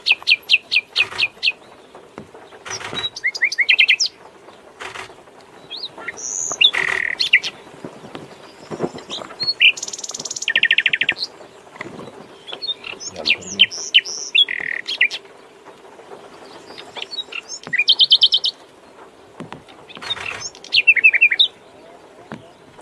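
Nightingale singing in separate phrases with short pauses between them: fast runs of repeated notes, trills and whistles. A faint steady hum lies underneath.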